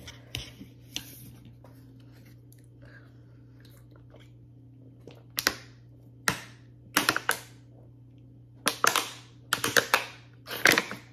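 Close-miked gulps of water swallowed from a plastic bottle: about six loud, sharp gulps in the second half, each fading quickly, with only faint clicks before them. A low steady hum runs underneath.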